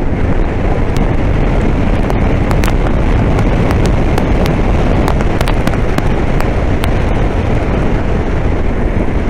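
BMW R1250R's boxer-twin engine running at road speed under steady wind rush on a helmet-mounted microphone, with scattered sharp cracks and pops.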